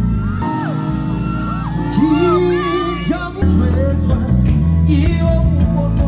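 Live band music through the stage PA: a singer's voice gliding over bass guitar and backing. The bass thins out for a few seconds and comes back in strongly about halfway through.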